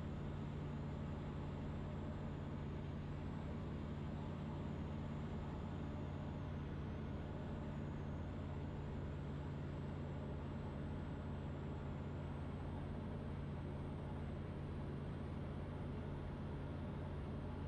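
Steady drone of a Van's RV-12's engine and propeller heard inside the cockpit in flight, a constant low hum with no change in pitch or power.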